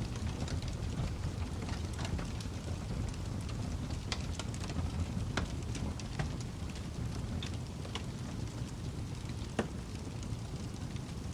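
Wood fire burning with a steady low rumble and scattered sharp crackles and pops; one pop stands out near the end.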